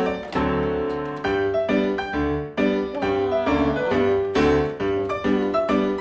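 Background music: a bouncy piano tune with a steady beat.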